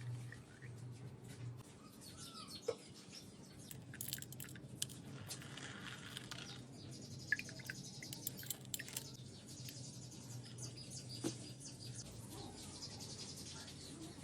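Faint bird chirps with scattered small clicks over a low steady hum.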